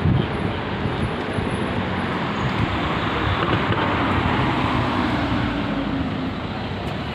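Street traffic: a steady, noisy rumble of motor vehicles on the road.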